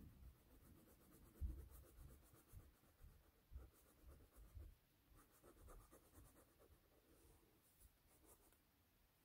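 Faint scratching of a black wax crayon scribbled back and forth on sketchbook paper, with a few soft low bumps, the loudest about a second and a half in.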